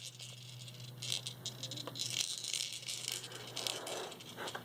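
Plastic toys on a Rainforest Jumperoo baby bouncer rattling in short, irregular bursts as the baby moves in the seat.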